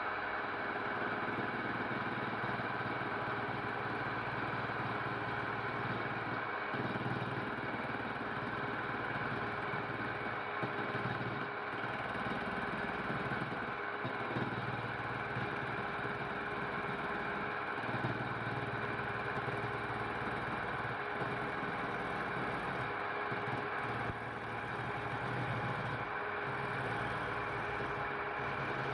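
Wood lathe running steadily: an even motor hum with a constant hiss over it.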